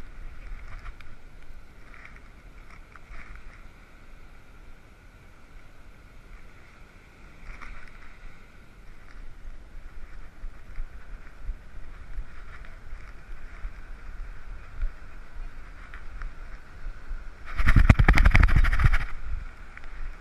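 Wind and breaking surf, muffled through a dog-mounted GoPro's waterproof housing, with small knocks as the camera jostles on the walking dog. Near the end a loud rubbing scrape lasts about a second and a half.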